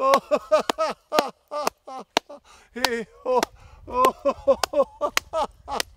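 Hand clapping mixed with short chanted 'ha' and 'ho' syllables, the clapping-and-chanting warm-up of laughter yoga.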